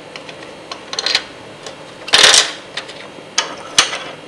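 Plastic keycaps clicking and clattering as they are handled, with a louder, brief rattle about two seconds in and two sharp clicks near the end.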